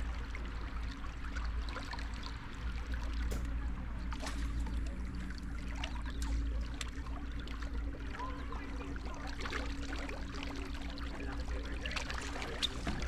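Light rain falling, scattered drop ticks throughout, over a steady low rumble and hum.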